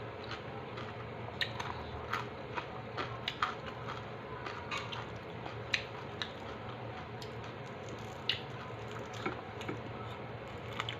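Close-up chewing of crispy fried chicharon, with irregular sharp crunches between quieter chewing, over a faint steady hum.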